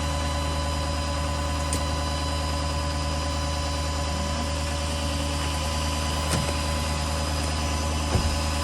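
A vehicle engine idling, a steady low hum with a couple of faint clicks near the end.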